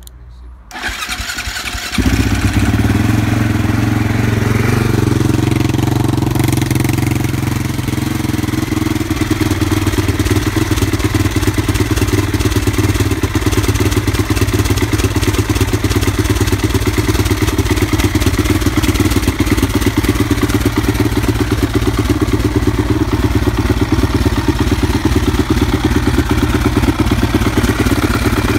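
Husqvarna TE 450's single-cylinder four-stroke engine cold-started on the electric starter. It cranks for about a second, catches about two seconds in, and then idles steadily.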